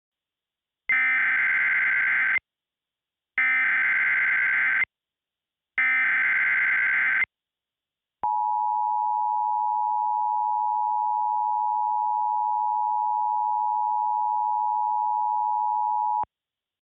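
Emergency Alert System activation: three identical bursts of SAME header data, each a buzzy warbling digital tone about a second and a half long, then the EAS two-tone attention signal, a steady dual-tone beep held for about eight seconds that stops abruptly. This marks the start of an emergency broadcast.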